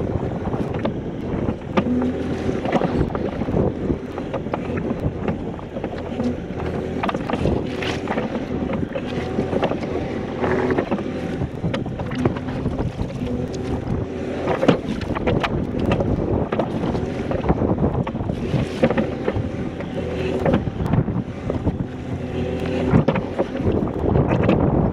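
Hydraulic excavator working a ditch: its diesel engine runs under load while the wide ditching bucket scrapes and scoops wet soil, with repeated clunks and scrapes of steel on earth. Wind buffets the microphone.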